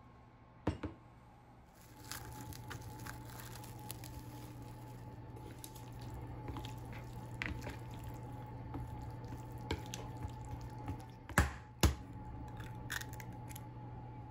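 Chopsticks mixing soft, wet udon noodles in a bowl, with many small clicks and scrapes of chopsticks against the bowl over a steady low hum. Near the end come two sharp knocks about half a second apart.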